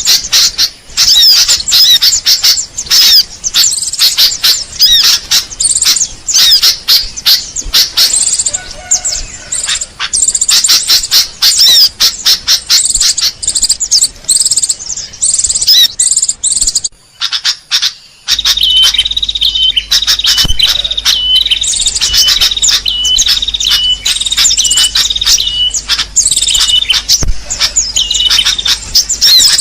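Bird-lure recording of many small birds chirping and trilling densely together. It breaks off briefly about two-thirds of the way in, then resumes with a short high call repeated a little more than once a second over the chirping.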